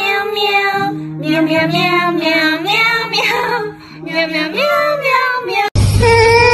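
A child's singing voice over a light instrumental backing, the melody gliding up and down. Near the end it cuts off abruptly, and a loud, steady low hum with a held tone takes over.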